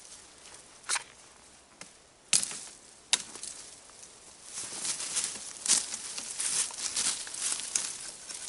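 A thin sapling being cut with a knife and handled. There are sharp cracks about one, two and three seconds in, then busy crackling and rustling of twigs and leaves from about halfway through.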